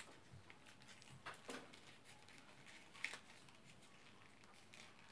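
Faint handling of folded white paper: a few soft crinkles and rustles as it is pressed and opened, over near silence.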